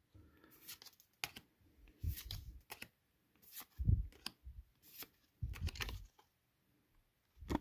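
Pokémon trading cards being slid and flipped one behind another in the hand: irregular short card flicks and rustles, with a few soft low thumps.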